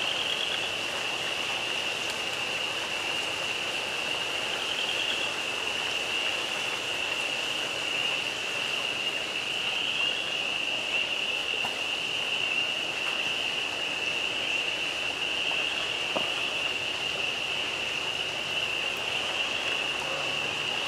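A chorus of spring peepers: a continuous high peeping with small rising flicks now and then. Under it runs a steady hiss of water trickling and air bubbling in the aquaponics tanks.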